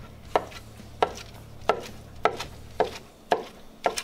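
Large kitchen knife chopping slow-roasted pork on a cutting board: about seven even, sharp strokes of the blade hitting the board, roughly one every half second or so.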